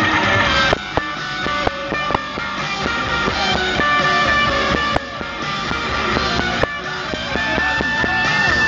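Rock band playing live, electric guitars with drums, heard from within the crowd.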